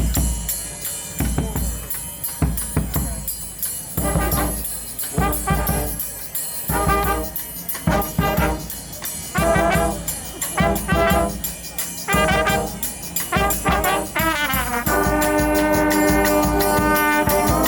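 Street brass band playing, trombones and trumpets over a drum beat: short repeated brass phrases, then the horns hold one long chord from about fifteen seconds in.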